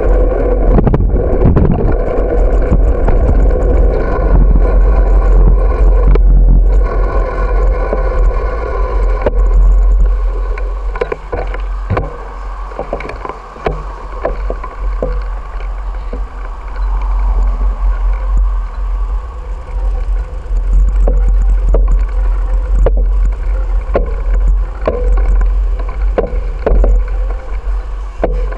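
Wind buffeting the microphone of a camera on a moving bicycle, a heavy rumbling rush. Short rattling clicks come from the mount or bike over bumps. The wind noise eases for several seconds in the middle, then picks up again.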